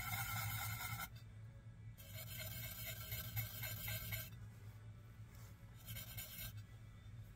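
Underglaze pencil scratching across an unglazed bisqueware plate in three strokes: one that stops about a second in, a longer one from about two to four seconds, and a short one near six seconds.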